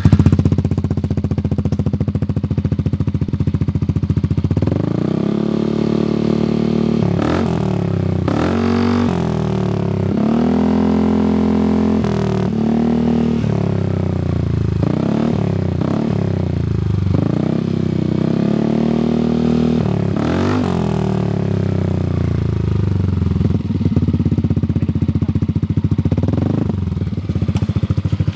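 Yamaha NMax 150 scooter's single-cylinder engine running through a Prospeed full-system aftermarket exhaust: it idles for a few seconds, then is revved over and over in throttle blips that rise and fall for about a quarter of a minute, then settles back to idle with one more short blip near the end.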